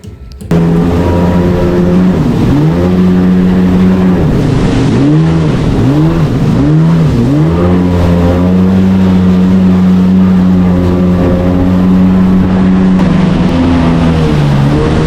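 Jet ski engine running hard. Its note drops and picks back up several times as the throttle eases and opens again, then holds steady. The sound comes in suddenly about half a second in.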